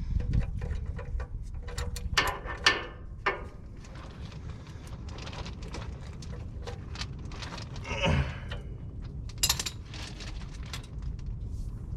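Socket wrench ratcheting and clinking as an oil-pan drain plug is tightened: many sharp metal clicks with a few louder knocks, over a steady low rumble.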